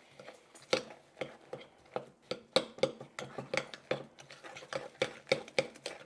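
Metal spoon stirring and clinking against a glass mixing bowl, working a thick, stiffening paste of baking soda, washing soda and vinegar. There are short sharp clinks, about three a second, starting under a second in.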